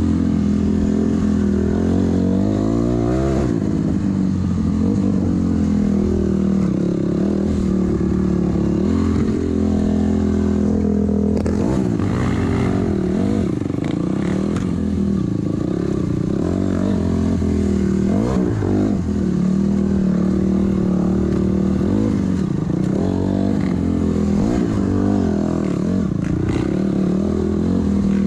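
Honda CRF250R dirt bike's single-cylinder four-stroke engine under way, its pitch rising and falling repeatedly as the throttle is worked and the gears change.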